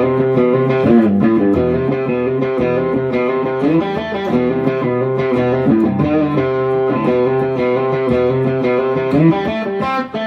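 Outro music led by an electric guitar with distortion, playing bending notes.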